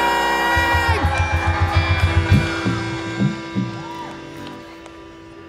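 Live Pakistani pop band with a female singer: she holds a sung note that ends about a second in, bass and drums play a quick rhythm for a couple of seconds more, then the band drops out and a single held note rings on, growing quieter.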